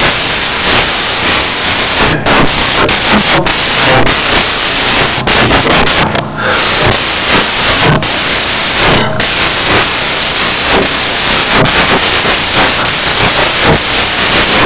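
Loud, steady hiss like static or white noise, broken by a few brief dips.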